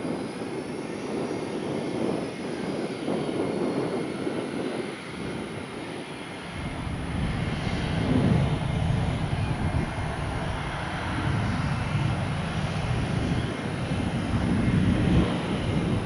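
Jet airliner engines with a faint high whine, joined about six seconds in by a deep rumble that holds.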